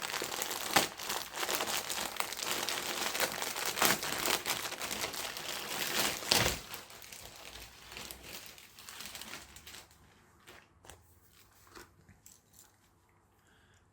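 Packaging crinkling and tearing as it is pulled open by hand, dense for the first six or seven seconds, then thinning to a few scattered rustles.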